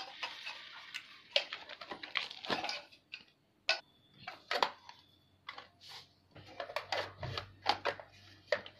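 Irregular clicks and taps of a bench grinder's wheel guard cover and clear plastic eye shield being handled and fitted into place.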